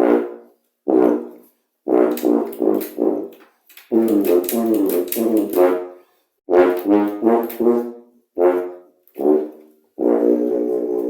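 Helicon bass tuba played loud: a phrase of detached notes, then a quicker run of notes, ending on a long held note.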